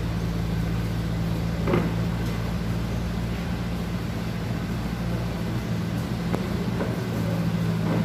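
A steady low machine hum, with a brief short sound just under two seconds in.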